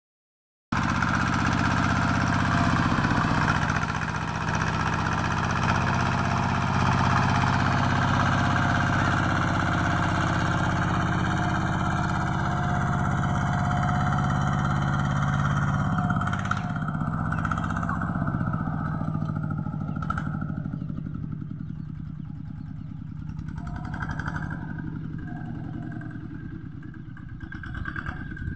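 Engine of a small homemade Thai farm tractor running steadily as it pulls a plough through the soil. It grows quieter after about the middle as the tractor moves away.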